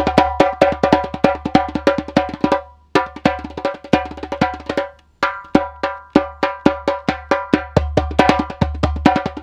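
Djembe played with bare hands: a fast run of strikes, several a second, mixing deep bass tones with sharper slaps, with two short breaks, about three seconds in and again at about five seconds.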